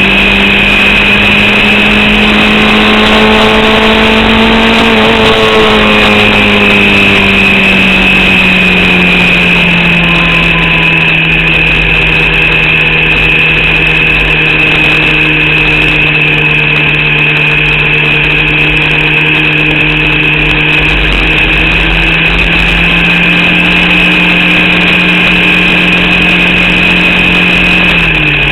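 In-car sound of a Formula Vauxhall 8v race car's engine running hard at a nearly steady, limited pitch. It rises slightly at first, eases down a few seconds in, then holds, with a steady high whine over it. The engine is misfiring and held to low revs, around 4500 rpm, by an alternator/battery fault draining its power.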